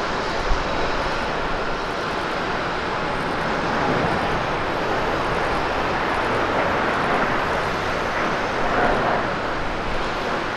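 Airbus A350-900's two Rolls-Royce Trent XWB turbofan engines at takeoff thrust as the jet rolls, lifts off and climbs: a steady, dense jet noise that swells slightly a few seconds in and again near the end.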